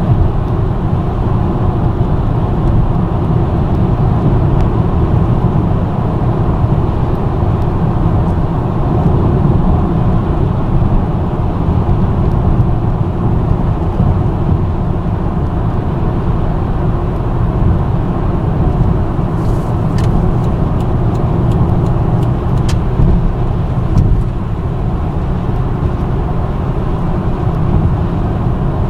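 A car driving steadily at highway speed: an even, low rumble of tyre and road noise with engine drone. A few faint clicks come about two-thirds of the way through.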